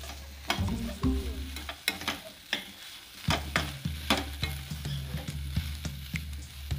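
Spatula stirring diced carrots, green beans and grated coconut in a nonstick pan, with irregular clicks and scrapes of the spatula against the pan over a light frying sizzle and a low steady hum.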